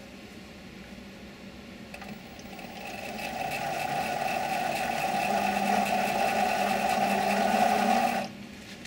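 7x16 mini lathe running for a thread-cutting pass: the spindle motor and gear train start about two seconds in and build to a steady mechanical whine, which stops abruptly near the end.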